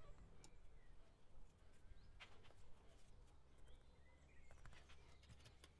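Near silence: faint low room hum with a few faint scattered clicks.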